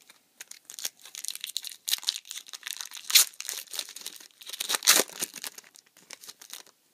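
A foil Yu-Gi-Oh booster pack wrapper being crinkled and torn open, crackling for several seconds with two louder rips, about three and about five seconds in.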